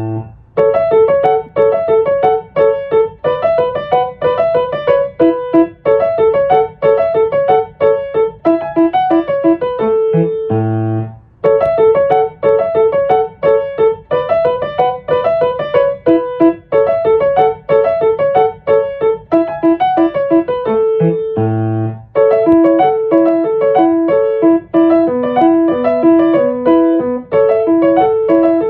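Solo piano music: a quick, even run of short notes over a low bass line, twice settling on a held chord (about a third and about three-quarters of the way through) before the run starts again.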